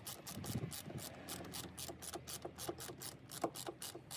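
Small socket ratchet clicking rapidly and evenly, about seven clicks a second, as it is worked back and forth to tighten a hose clamp screw on the coolant expansion tank hose.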